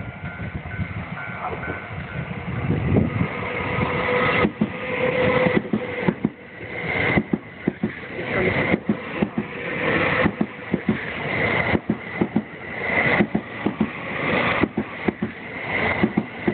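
Thunderbird limited express electric train passing very slowly: a steady running rumble with sharp clicks of the wheels over rail joints. The clicks come in swells about every second and a half as each bogie passes.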